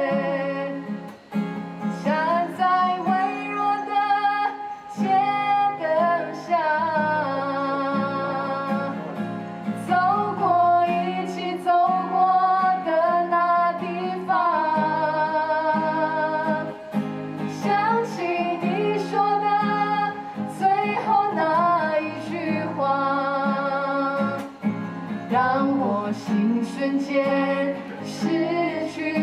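A woman singing a melody with vibrato on held notes, accompanied by a strummed acoustic guitar.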